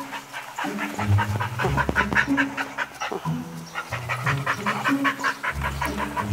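Brittany dog panting quickly and evenly, several breaths a second, over background music with held bass notes.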